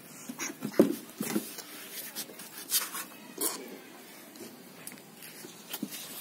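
A few scattered short knocks and scuffs, the loudest about a second in.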